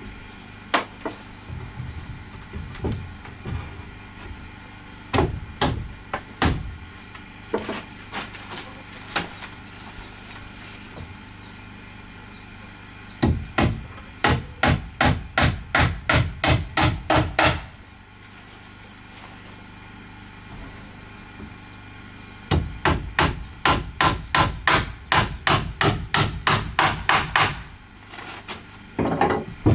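Hammer striking wood in bunk-bed building: a few scattered single blows, then two fast runs of steady hammering at about four blows a second.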